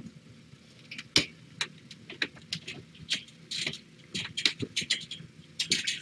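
Irregular light clicks and rustling from hands working at the wire mesh panel of a kitten pen, with one sharper click about a second in and busier clicking later on.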